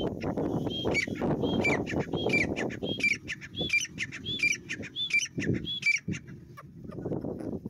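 Grey francolin calling: a rapid, regular series of about ten loud two-part notes, each a high note that drops sharply, repeating about one and a half times a second and stopping about six seconds in.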